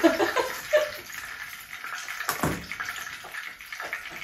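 A steady hiss with a few light ticks, and one sharp knock about two seconds in.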